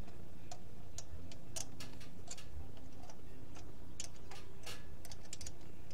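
Ratcheting wrench clicking in short irregular runs as it is swung back and forth, turning a thread tap in a freshly tapped bolt hole in an engine. A steady low hum runs underneath.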